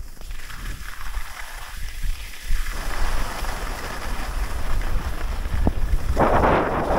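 Wind buffeting an action camera's microphone during a downhill run on packed snow, with the hiss of sliding over the snow. About six seconds in, a louder scraping hiss starts as the edges cut into the snow.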